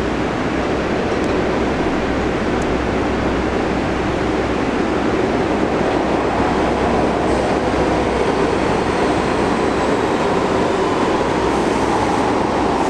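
A New York City subway shuttle train of R62A cars approaching along the platform track out of the tunnel: a steady rumble of wheels on rail that grows slightly louder as it draws near.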